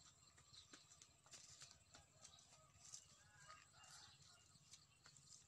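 Near silence: faint outdoor background with scattered faint clicks and a few brief faint chirps.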